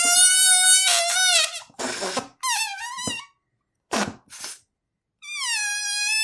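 Rubber balloon squeaking as air is let out through its stretched neck. A high, wavering squeal breaks off about a second and a half in, followed by a few short squeaks and puffs of rushing air with brief silences. Near the end the squeal starts again, dips a little in pitch, then holds steady.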